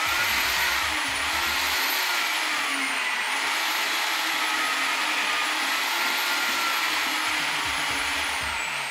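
Handheld electric drill with a paddle mixer stirring a batch of plaster mix, its motor whining steadily with the pitch wavering slightly under load, then slowing as it is switched off near the end.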